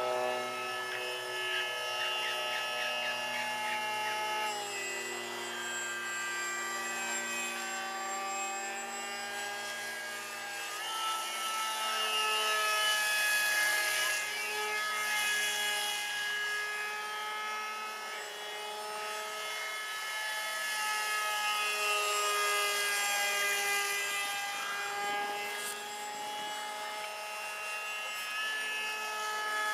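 Battery-powered electric motor and propeller of a small foam RC F-22 model jet whining in flight. The pitch steps up and down with the throttle and bends as the plane swings past.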